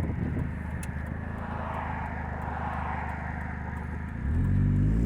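2000 Nissan Altima's four-cylinder engine and leaking exhaust while driving, a steady low rumble with road noise. About four seconds in it jumps to a loud, steady drone with several low tones as the engine comes under throttle, the exhaust-leak noise that goes away when the gas is released.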